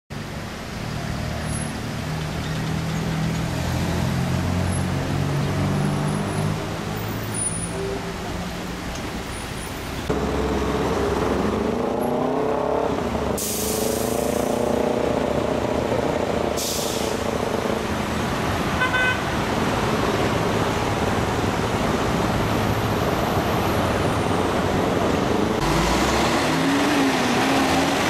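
Street traffic: car and truck engines idling and pulling away, their pitch rising and falling. In the middle there are two short hisses and one brief horn beep, and near the end a semi-truck's engine rises in pitch as it pulls off.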